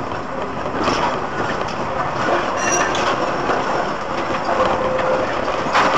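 A tram running close alongside, its rolling rail noise heard through a car's dashcam microphone over road noise, with brief high squeals about three seconds in. A sudden louder rush of noise comes just before the end.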